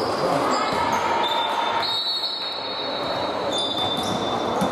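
Basketball game sounds in an echoing sports hall: the ball bouncing on the wooden court over a steady background noise from the hall.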